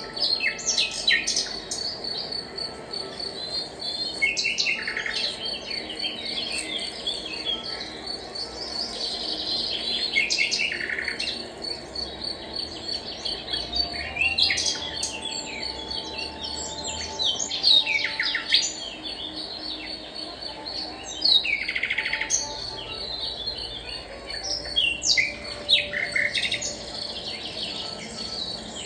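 Several small wild birds chirping and singing, with short falling song phrases every few seconds. Underneath runs a steady, high-pitched pulsing insect trill.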